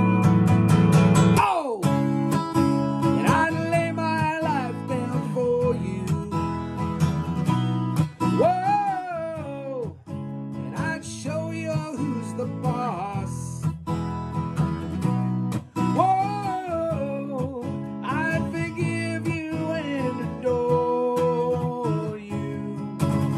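Acoustic guitar strummed in a steady rhythm, with a man singing along over it in phrases.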